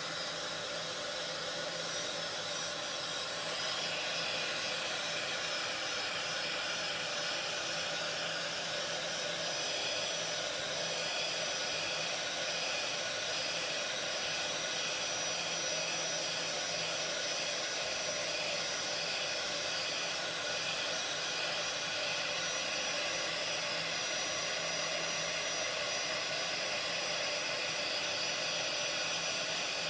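Heat gun running steadily, its fan blowing a continuous rush of hot air while shrinking heat-shrink tubing over soldered cable joints.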